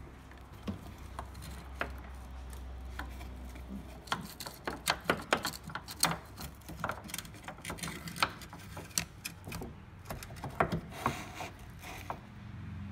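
Irregular clicks and knocks of hands and tools handling a Mercedes W123 wagon's tailgate and its gas strut while the strut is worked loose, sparse at first and then coming thick and fast for several seconds.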